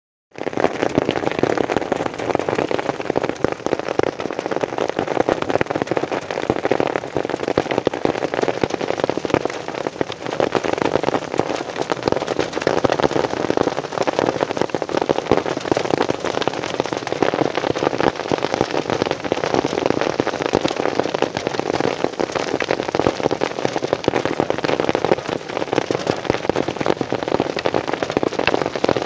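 Hailstorm: hailstones falling onto grassy pasture ground, a dense, steady clatter of countless small impacts.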